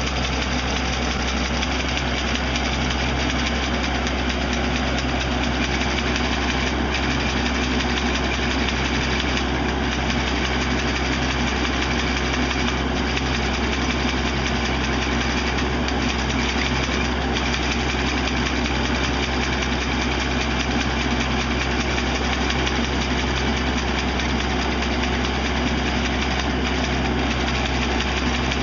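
Tractor engine running steadily, driving the hydraulic brush trimmer's cutter bar; an even, continuous drone.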